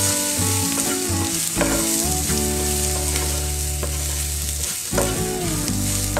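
Green peas, onion and ground spices sizzling in hot oil in a frying pan, stirred with a wooden spatula: the spiced filling being fried for potato samosas.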